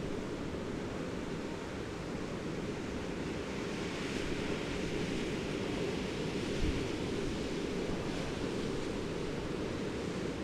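Steady rushing noise of wind and water, with a single brief low bump about six and a half seconds in.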